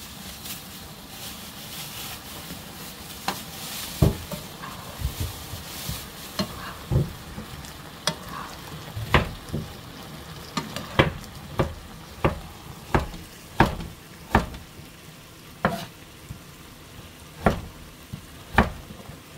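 Eggplant chunks in soy sauce sizzling in a frying pan while a spatula stirs them, with sharp clacks about once a second through the second half.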